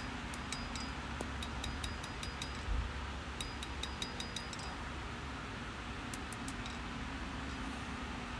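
Hand hammer tapping a red-hot steel chef's knife blade on the anvil in quick runs of light blows, about five a second, each with a short metallic ring: the smith is cleaning up the blade's edge profile, done on the anvil because the edge was left thick. The blows come in three runs and a last short one, then stop about six and a half seconds in.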